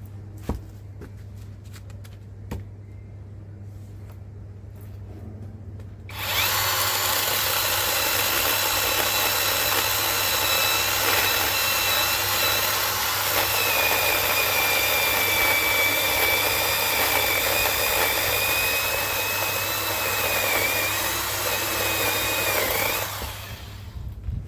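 Cordless electric chainsaw cutting through a log: the motor starts about six seconds in and runs steadily with a high whine and the chain rasping through wood for about seventeen seconds, then stops near the end. Two faint clicks come before it starts.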